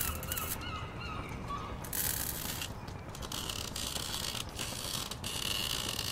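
MIG welding on steel: the arc crackles and hisses in stop-start runs, a short burst at about two seconds and a longer run from just past three seconds. Birds call over the first two seconds.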